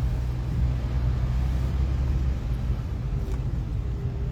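Car's low, steady rumble of engine and tyres heard from inside the cabin as it moves forward.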